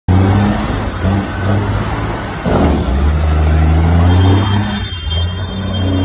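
Heavy diesel truck engine running close by, its low hum shifting in pitch and growing stronger for a couple of seconds, with a short loud rush of noise about two and a half seconds in.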